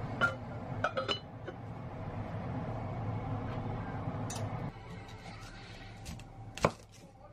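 Heavy cast-iron STAUB cocotte lid set onto the pot: a sharp clink about a quarter-second in and a few lighter clinks around a second in, over a steady low hum that stops at about four and a half seconds. Near the end, a kitchen knife cuts through an onion and knocks once on the wooden cutting board.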